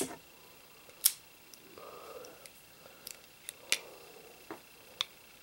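Smith & Wesson Model 10 .38 Special revolver's action being worked by hand: a series of sharp metallic clicks from the hammer, trigger and cylinder, spaced irregularly about a second apart.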